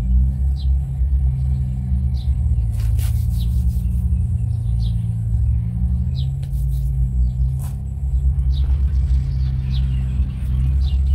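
A steady low motor rumble with a constant hum, with short high chirps about once a second over it and a couple of sharp crackles.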